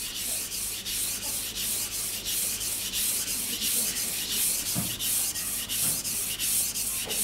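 A kitchen knife blade stroked back and forth on a wet whetstone coated with its own slurry, in an even gritty rubbing rhythm of about three strokes a second. This is the sharpening that raises a burr along the edge.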